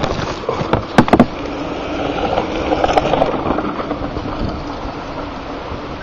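Steady rushing wind and handling noise on a camcorder microphone, with a few sharp knocks about a second in.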